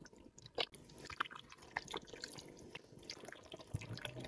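Silicone spatula stirring cubes of jelly through a thick mayonnaise and condensed-milk dressing: faint, irregular wet squelches and small clicks.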